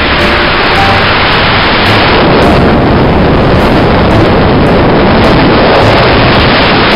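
Loud, steady wind buffeting the microphone of a helmet-mounted camera hanging in flight beneath a UH-60 Black Hawk helicopter, with the helicopter's noise mixed in.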